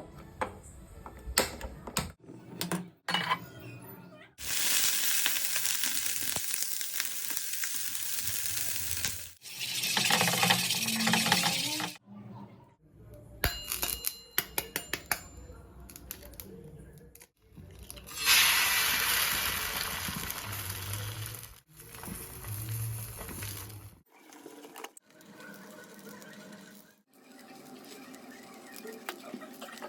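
Cooking sounds of an egg dish: sharp clinks and taps of utensils against a bowl or pan, alternating with stretches of loud, even sizzling as egg fries in a hot pan.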